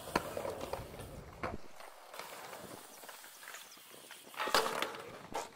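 BMX bike tyres rumbling on a concrete skatepark ramp with a few light clicks, then a sharp clattering knock about four and a half seconds in as the bike lands back on the quarter pipe after an air trick.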